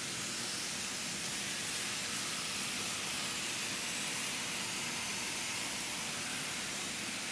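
Sliced vegetables and pancake batter sizzling on a griddle heated to about 450°F as the batter is poured over them: a steady, even hiss.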